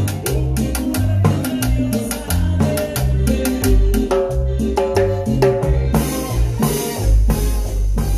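Live Latin dance band playing an up-tempo number, with chrome timbales struck with sticks close to the microphone over a moving bass line and sustained melody. Cymbal crashes come in about six seconds in.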